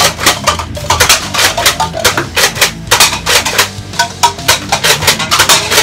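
Rapid run of sharp plastic clacks, about four a second, from a Nerf Elite Alpha Trooper being pump-actioned and slam-fired, over background guitar music.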